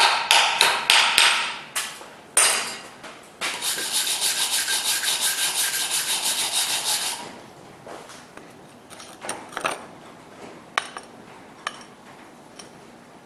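Chipping hammer rapping the slag off fresh 6013 stick welds on steel plate in quick strikes for about two seconds. Then a wire brush scrubs the welds in fast strokes, about five a second, for some four seconds. A few light metallic clicks follow as the plate is handled.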